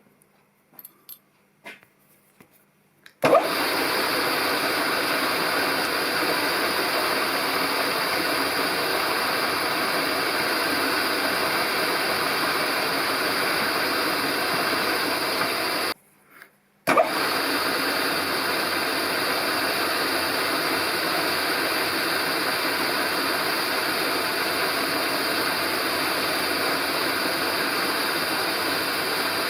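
A few faint clicks, then a workshop machine tool starts running suddenly about three seconds in with a loud, steady noise; it drops out for about a second near the middle and then runs steadily again.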